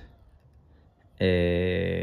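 A quiet pause, then just over a second in a man's voice draws out one steady hesitation sound, a held 'eeh', mid-sentence.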